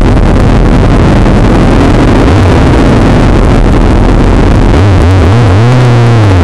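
Motorcycle engine pulling away from a standstill, its revs rising and falling a few times in the last couple of seconds, under heavy wind rumble on the bike-mounted camera's microphone.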